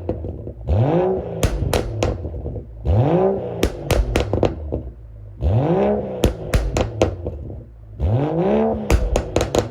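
BMW 640i Gran Coupé's turbocharged 3.0-litre inline-six through a straight-piped cat-back exhaust, revved four times about every two and a half seconds. Each rev rises and falls, and a quick string of pops and crackles follows as the throttle closes.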